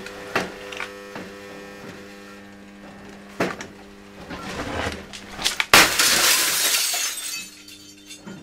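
Sunbed UV tubes being shot apart with an airsoft gun: scattered sharp ticks, then about six seconds in a long crash of shattering glass lasting about a second and a half. A steady hum runs underneath.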